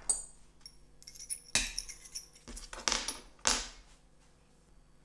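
Small aluminium parts of a jigsaw blade roller guide, a roller on a pin and a square tube, being handled and fitted together by hand: a bright metallic clink at the start, then three short scraping sounds as the metal pieces rub and are handled on a wooden bench.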